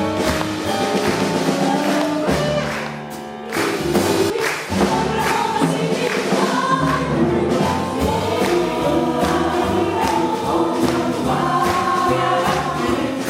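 A jazz chorus singing live with a small jazz band, with bass and drums keeping a swinging beat. The music eases briefly about three seconds in, then picks up again.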